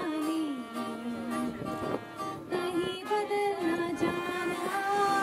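Live acoustic band music: violin and acoustic guitar with strummed strings, and a woman singing held, gliding notes.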